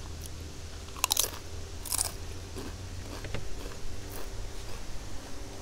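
Close-up eating sounds: two crisp crunching bites about one and two seconds in, followed by quieter chewing. A steady low rumble runs underneath.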